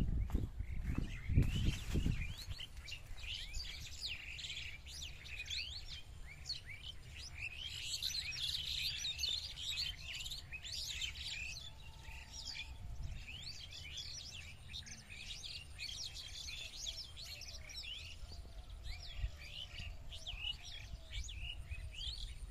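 Small birds chirping in a dense chorus of short, overlapping calls, with a few dull low thumps in the first two seconds.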